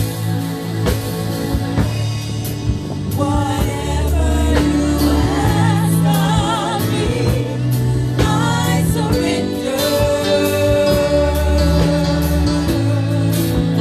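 Gospel music: singing with vibrato over sustained bass notes and band accompaniment, with a long held vocal note a little past the middle.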